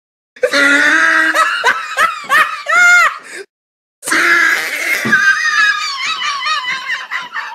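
Two separate clips of human laughter. The first is a run of quick, choppy laughs that peaks in a high squeal about three seconds in. After a short silence, a second, longer laugh begins about four seconds in and trails off.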